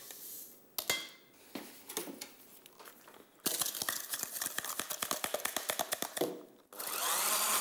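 Quick run of clinks from a glass of egg yolks and sugar being stirred by hand. Near the end an electric hand blender switches on and runs steadily, whisking the yolks and sugar.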